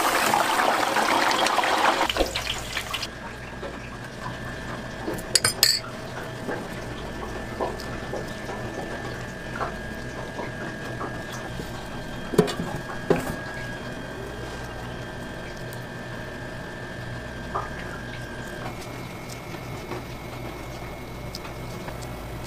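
Deep-fryer oil sizzling loudly, fading out about two seconds in. Then a steady hum of kitchen equipment with a few short clinks and knocks of metal tongs and utensils.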